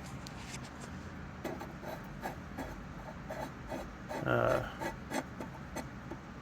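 Light clicks and rubbing of cast iron stove parts and a threaded rod being handled, with a short louder sound about four seconds in.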